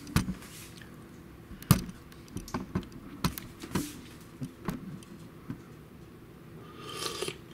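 A metal spoon clinks and scrapes against a soup cup in a string of sharp, irregular clicks as the chicken noodle soup is stirred and scooped. Near the end comes a short slurp as a spoonful is sipped.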